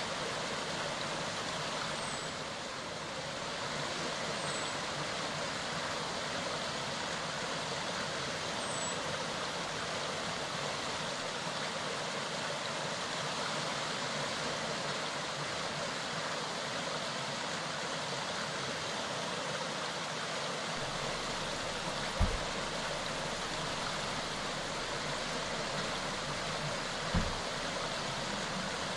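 Steady rushing of a mountain stream, with two brief low thumps about five seconds apart near the end.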